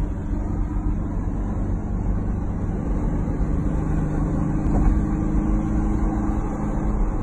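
Steady engine drone and tyre noise of a car driving at highway speed, heard from inside the cabin.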